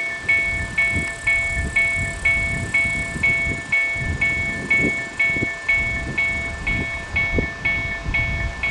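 Railroad crossing warning bell ringing steadily at about two strokes a second, over the low rumble and knocking of a freight train's wagons rolling past on the rails.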